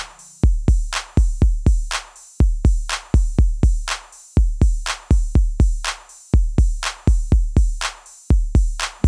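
Background music: an electronic drum-machine beat of deep kick drums with sharp clicks, about two to three hits a second, with no melody.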